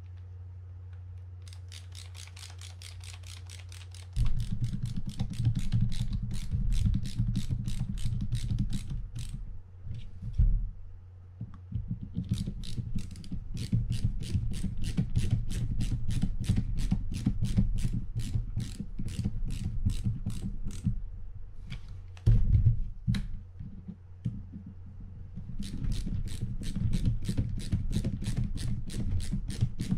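Ratcheting screwdriver clicking in a rapid, even run as it drives the screws of a Penn 320GTi fishing reel's side plate, over a low rumble of the reel being handled. The clicking stops twice, briefly, about a third and three quarters of the way through.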